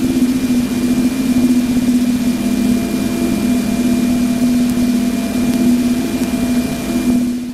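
Voyager Plasma Wave Subsystem data from a giant planet's magnetosphere, converted to audio: a steady droning hum over a hiss, fading out at the very end.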